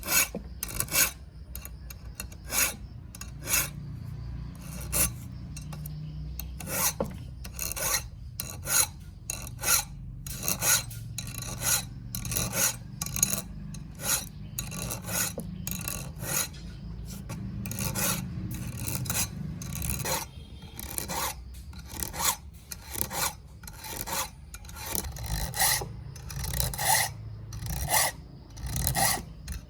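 Repeated strokes of a hand file scraping, about one to two a second, over a steady low hum.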